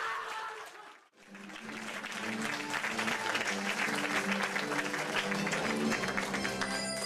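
A theatre audience applauding over music with long held notes, starting about a second in after a brief silence.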